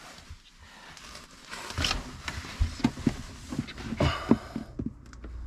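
Scattered clicks and knocks of tools and a strap being handled, with a rustle about two seconds in and a sharper knock about four seconds in.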